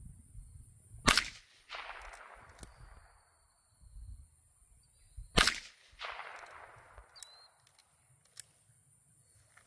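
Two .22 rifle shots about four seconds apart, sharp cracks each trailed a moment later by a fading echo.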